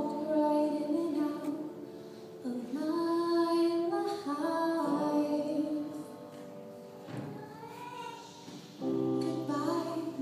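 A woman sings a slow solo song into a microphone, in phrases with long held notes, over a steady instrumental accompaniment. Her voice drops out for a stretch in the second half.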